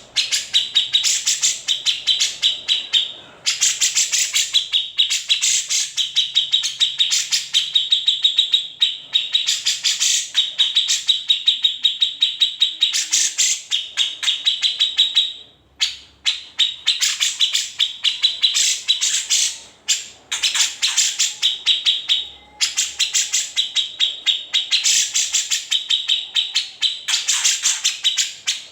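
Grey-cheeked bulbul (cucak jenggot) singing long, rapid trilling phrases of high notes, each lasting a few seconds, with short breaks between them.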